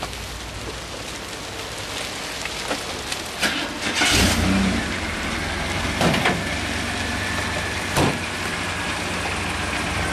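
Holden VN Commodore's 3.8-litre V6 engine being started: the starter cranks about four seconds in, the engine catches, and it settles into a steady idle. A few sharp clicks come before and after.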